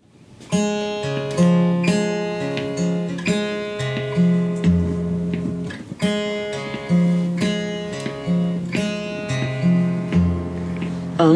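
Solo acoustic guitar playing a song's intro, chords picked by hand over a moving bass line, the same phrase played twice. It begins just after the start, out of silence.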